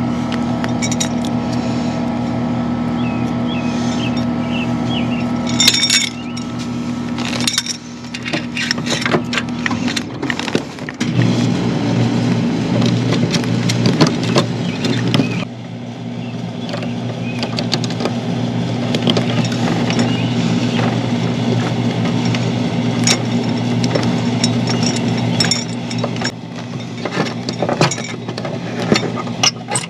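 A steady motor drone that changes pitch twice, with scattered small clicks and rustles of wires and plastic wire connectors being handled and twisted together.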